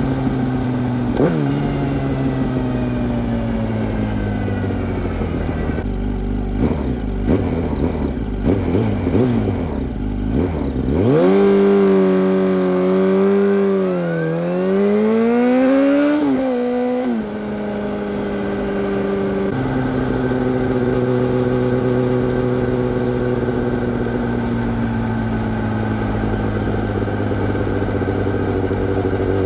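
2005 Yamaha YZF-R1's inline-four engine running through a full Yoshimura exhaust system. About eleven seconds in it revs up, dips and climbs again, then drops back after a few seconds and holds a steady note.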